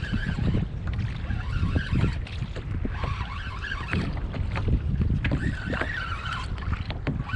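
Wind buffeting the microphone on a fishing kayak, with water slapping and knocking against the hull.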